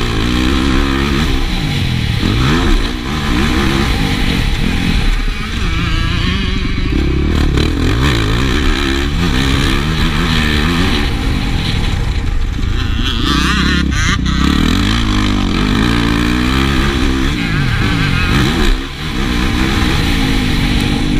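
Yamaha motocross bike's engine under hard riding, its pitch rising and dropping again and again as it accelerates and shifts, with the throttle briefly shut off about three seconds in and again near the end.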